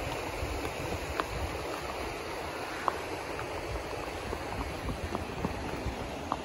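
Rocky mountain creek rushing steadily over stones, with a few sharp clicks scattered through it.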